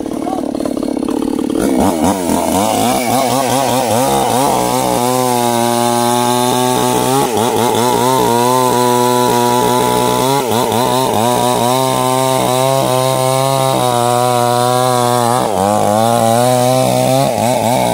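Stihl chainsaw revving up about two seconds in and then running at full throttle as it cuts into a large sengon trunk. Its pitch sags and recovers several times as the chain takes load in the wood.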